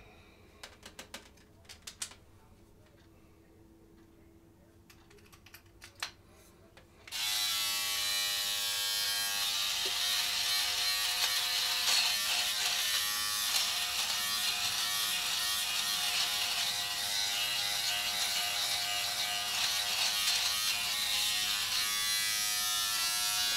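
A few light handling clicks, then about seven seconds in a Philips Norelco Multigroom 7000's shaver head switches on and runs with a steady electric buzz while cutting thick neck stubble, which is bogging the shaver down.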